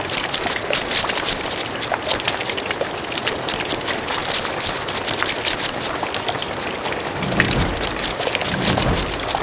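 Crab sound effect: a dense, rain-like crackle of rapid clicks and patters, with a few low thumps near the end before it cuts off suddenly.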